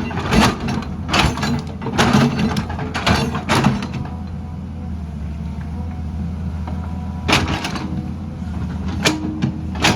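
Excavator's diesel engine running steadily, with a series of sharp cracks and knocks, several in the first four seconds and more near the end.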